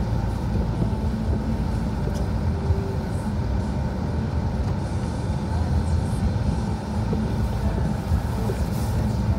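Snow plow truck's engine and drivetrain rumbling steadily, heard from inside the cab while the truck pushes snow with its front plow blade.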